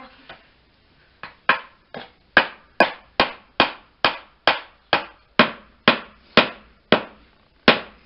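A hammer nailing down the lid of a small wooden nest box: about fifteen sharp blows, roughly two a second, starting about a second in.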